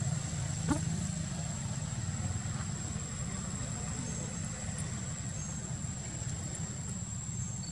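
Steady low engine-like rumble with a thin, constant high-pitched whine over it, and one short sharp sound under a second in.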